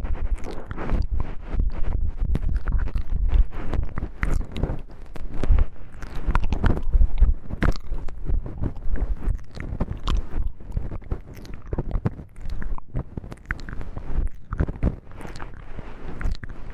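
Close-miked ASMR handling of wooden knobs: a dense, irregular run of taps, clicks and scratchy crackles with low thumps from contact with the microphone.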